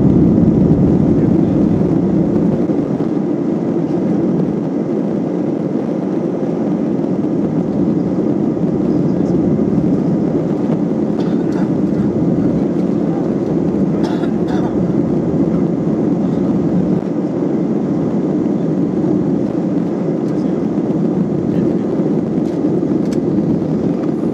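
Cabin noise of an Airbus A319-132 accelerating down the runway on its takeoff roll, with its IAE V2500 turbofans at takeoff thrust: a steady, loud, low rushing noise with the rumble of the wheels on the runway. A few faint rattles sound about halfway through.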